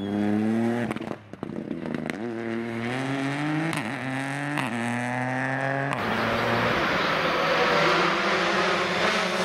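Rally car engine accelerating hard, climbing in pitch and dropping back at each upshift about once a second, with a brief lift about a second in. About six seconds in it cuts off abruptly and a steady rushing noise takes over.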